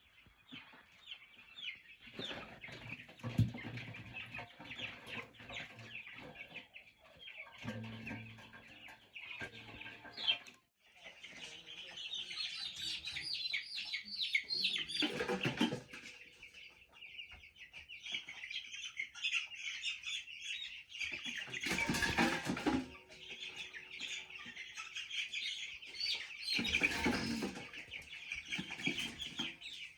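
A flock of two-week-old chicks peeping continuously in a dense chorus, broken several times by bumps and rustling.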